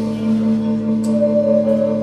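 Live instrumental slowcore band playing: sustained, droning electric guitar and bass tones held steady, with a new higher tone swelling in about a second in.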